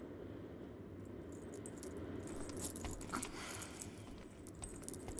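Light jingling and clicking of beaded jewellery and headdress ornaments on a moving costume, starting about a second and a half in, over a low steady hum.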